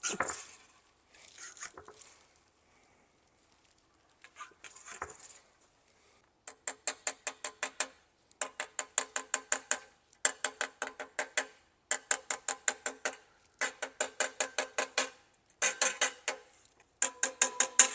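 Rapid light knocks on a brass trombone slide tube that has a precision dent rod inside it, knocking down the high crown spots of a collapsed, buckled tube. They come in runs of about eight or nine knocks, around six a second, each with a short metallic ring, starting about a third of the way in. Before that there are a few clinks of metal being handled.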